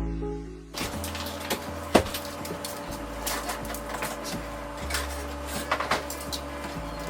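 Background music fades out, then irregular clicks, knocks and clatter of food containers and jars being handled, over a steady hum.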